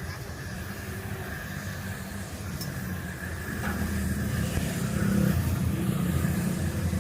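Low motor vehicle engine rumble, growing louder about four seconds in and easing slightly near the end.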